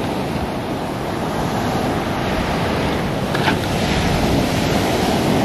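Surf washing onto the beach with wind buffeting the microphone: a steady, fairly loud rush of noise.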